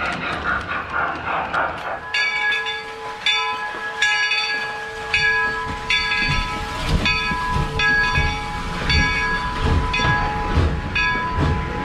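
Locomotive bell ringing steadily from about two seconds in, roughly three strokes every two seconds, each stroke ringing on into the next. Before it there is a short irregular clatter, and later a low rhythmic thumping runs underneath.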